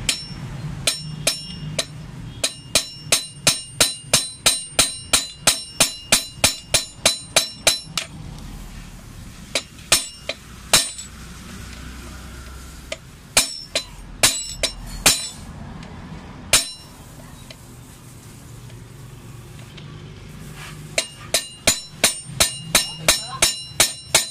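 A hammer strikes a metal punch set against the edge of a brake-disc bolt head, tapping the bolt round to loosen it. Each blow gives a sharp metallic clink that rings briefly. The blows come in a steady run of about three a second, thin out to single blows in the middle, then speed up again near the end.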